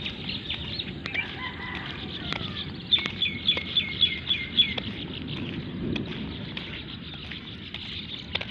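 Birds calling and chirping, with one bird giving a quick run of about seven sharp, repeated notes, the loudest sound, about three seconds in; a steady low background noise runs underneath.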